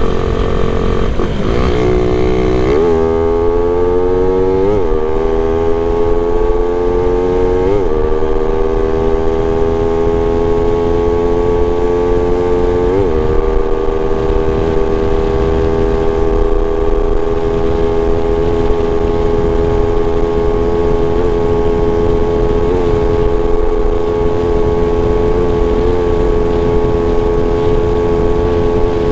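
Suzuki Raider 150 single-cylinder four-stroke engine, fitted with a 32mm carburettor, accelerating hard up through the gears: its pitch climbs and drops back at each of several quick upshifts, then holds steady at high revs near top speed. Wind rumble on the microphone runs underneath.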